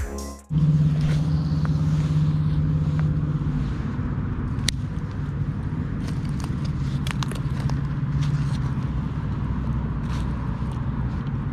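A motor running steadily with a low hum, with a few light sharp clicks over it. The last of a music track cuts off just at the start.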